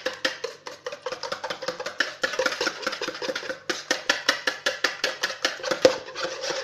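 Wire balloon whisk beating eggs in a mixing bowl, the wires clicking against the bowl in a fast, steady rhythm of about six strokes a second.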